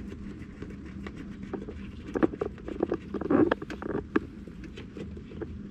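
Irregular clicks and knocks of hands fitting a grommet and screwing a bolt in by hand, thickest in the middle few seconds, over a faint steady hum.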